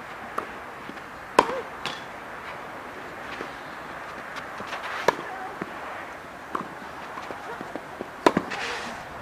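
Tennis racket strings striking the ball during a baseline rally on a clay court: three sharp pops about three and a half seconds apart, the first and last the loudest, with fainter knocks between them.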